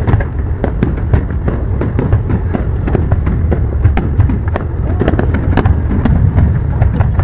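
Fireworks display: aerial shells bursting in quick, irregular succession, many sharp bangs over a steady low rumble.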